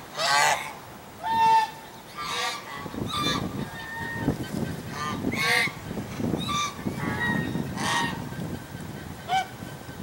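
A flock of domestic geese honking repeatedly, one loud nasal call about every second, some held on one pitch and others broken into quick runs. A low rumble comes in underneath about three seconds in.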